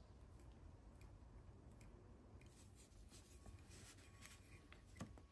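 Near silence, with faint rubbing and a few small clicks from fingers smoothing epoxy putty over the end of a plastic replica part; one slightly louder click near the end.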